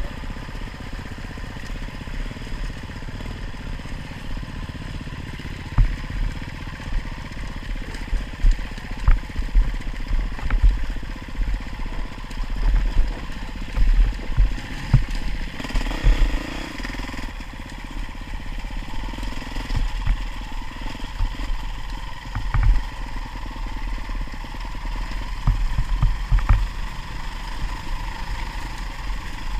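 Off-road motorcycle engine running steadily, with repeated short low thumps.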